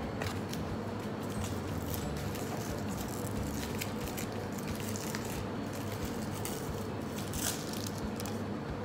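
Faint crinkling and light taps as a wide plastic bubble-tea straw is unwrapped and handled, over a steady low room hum.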